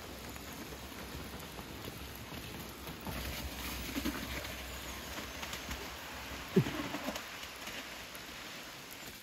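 Mountain bike rolling down a wet dirt forest trail: an even rushing noise of tyres and air over the microphone. A few short low calls sound through it, the loudest a falling one a little past halfway.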